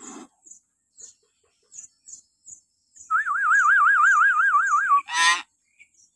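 Hill myna calling: faint high chirps, then about three seconds in a loud whistle that wavers up and down about six times a second for some two seconds, ending in a short shrill shriek.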